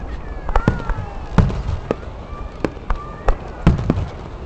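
Fireworks exploding: about ten sharp bangs and pops at irregular intervals, some louder than others.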